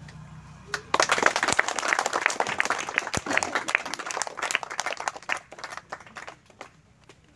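A group of people applauding. The clapping starts about a second in and dies away near the end.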